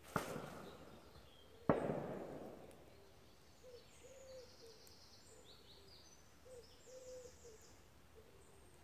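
Two distant gunshots from a shoot, about one and a half seconds apart, each echoing away through the woods. After them a bird coos repeatedly in the background and small birds chirp.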